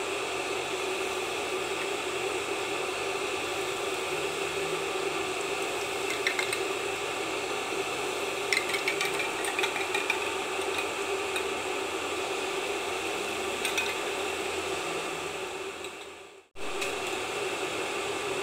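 Vegetable fritters frying in hot oil in a nonstick pan: a steady sizzle over a faint hum, with a metal utensil clicking against the pan in a few short runs around the middle. The sound fades out and cuts off for a moment near the end.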